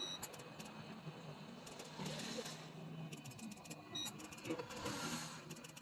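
Hot air rework station blowing a steady stream of air over a circuit board while a USB port is desoldered. Two short beeps sound, one at the start and one about four seconds in, and a few light clicks come near the end.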